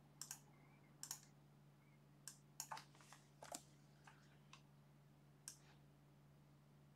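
Faint, irregular clicking at a computer, about ten short clicks spread unevenly, over a faint steady low hum.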